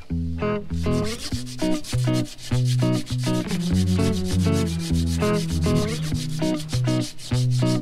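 Background music: a track with a changing bass line and a fast, steady rhythm.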